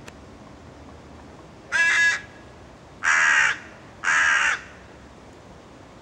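A young hooded crow calling: three loud, harsh caws of about half a second each, a second or so apart, the first more clearly pitched than the other two.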